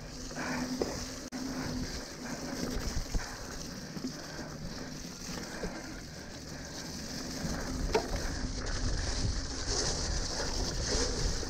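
Mountain bike riding over a wet, muddy forest singletrack: a steady hiss of the tyres on the sloppy dirt with small knocks and rattles from the bike, and one sharp knock about eight seconds in.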